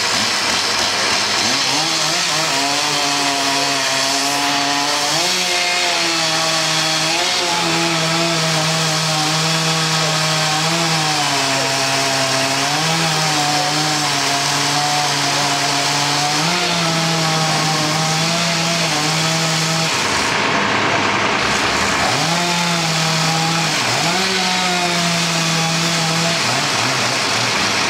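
Chainsaw running hard as it cuts into the trunk of an uprooted tree, its pitch rising and sagging as the chain bites and eases off. The pitch drops away briefly about two-thirds of the way through, then revs back up.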